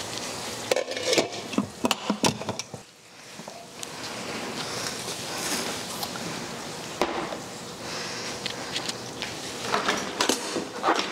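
Pots, lids and utensils knocked and set down on a stone counter, a run of knocks and clinks in the first few seconds and again near the end, over a steady hiss.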